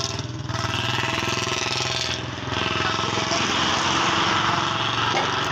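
A small engine running steadily, with a low, fast, even pulsing note.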